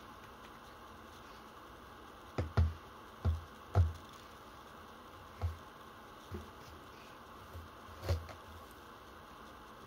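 Revolver parts and small tools being set down on a wooden desktop: a string of short knocks, several close together from about two and a half to four seconds in, then a few single ones spaced out after.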